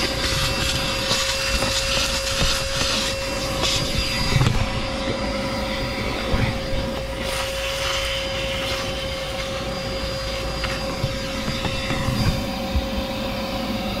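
Chemical Guys DetailVac corded handheld vacuum cleaner running steadily, a constant motor drone with a steady whine. Its hose and crevice tool suck along a car's floor, with a few brief knocks and scrapes.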